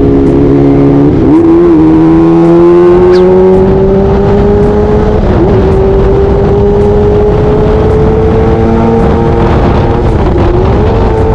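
Kawasaki ZX25R's 250 cc inline-four engine pulling under throttle while riding, heard from on the bike with wind rush. The engine note climbs slowly in pitch and dips briefly three times: about a second in, around the middle and near the end.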